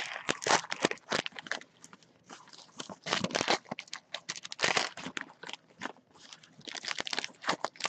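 Wrappers of 2017 Panini Donruss Elite football card packs being torn open and crinkled by hand, in quick irregular bursts of crackling.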